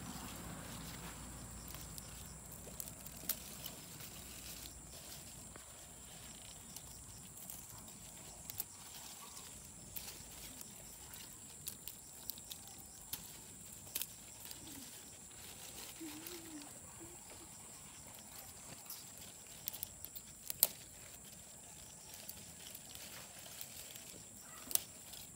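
Mustard greens being picked by hand: faint scattered snaps and rustles of stems and leaves over a steady high-pitched hum, with a faint short call about sixteen seconds in.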